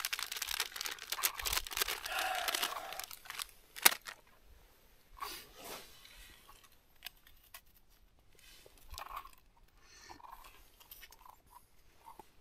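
Plastic cookie wrapper being crinkled and torn for about three seconds, then a single sharp click, followed by faint scattered crunching as a cookie is eaten.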